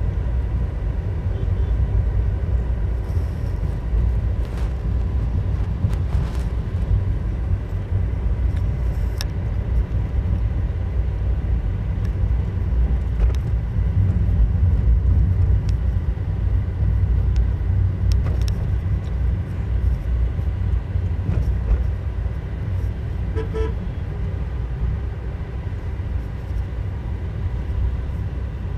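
Road vehicle driving along: a continuous low rumble of engine and road noise, with a short horn toot about three quarters of the way through.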